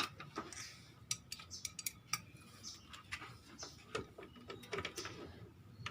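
Irregular light metallic clicks and clinks of hand tools on bolts, several a second, as a scooter's radiator fan cover is bolted back on.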